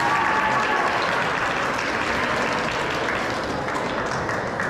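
Audience applauding in a gymnasium: a steady clatter of many hands clapping, easing off near the end.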